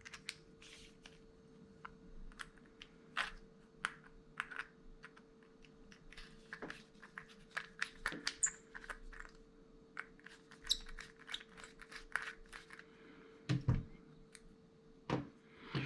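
Scattered small clicks, taps and scrapes of an old pocket lighter's metal parts being handled and taken apart, with a faint steady hum underneath.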